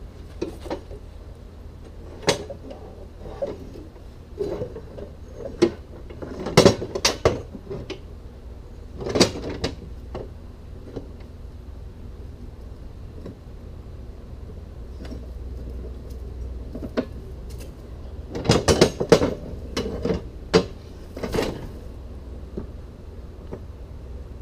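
Irregular metal clanks and knocks from handling a zero-turn mower's steel cutting deck and frame, coming in clusters with quieter pauses between.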